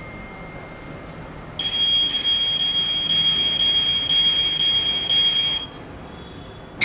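Die-cast Brabus 700 toy car's electronic door-open warning sound: a steady, high bell-like tone through its small speaker, starting between one and two seconds in and lasting about four seconds, triggered by the front door being opened. A sharp click comes at the very end.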